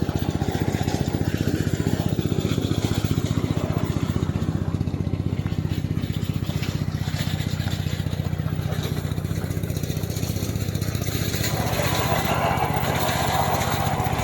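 Engine of a remote-controlled tracked brush cutter running steadily with a fast, even pulse. About eleven seconds in, a higher hum joins it.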